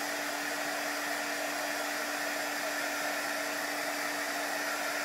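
Handheld dryer blowing steadily over wet chalk paste on a silkscreen transfer, an even rush of air with a steady hum from its motor.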